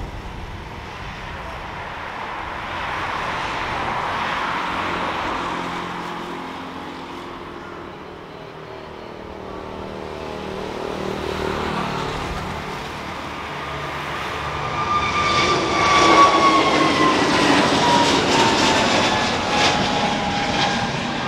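Airbus A320neo-family twin-jet airliner's engines at takeoff thrust: a swelling jet rumble, then a loud engine whine from about three-quarters through whose pitch falls steadily as the jet passes and climbs away.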